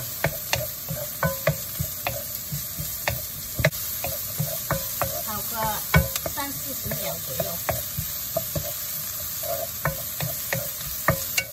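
Diced bell peppers, shallots, scallions and garlic sizzling in oil in a nonstick wok while a wooden spatula stir-fries them, with irregular knocks and scrapes of the spatula against the pan.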